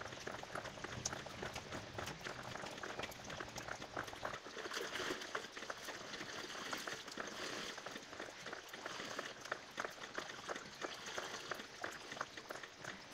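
Water splashing and trickling across the wet floor of a pit lined with jute sacks, a dense crackle of small splashes.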